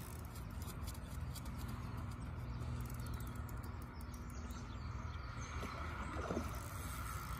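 Outdoor lakeside ambience: a steady low hum, with a pitched tone in it that fades out about two-thirds of the way through, and a few faint bird chirps.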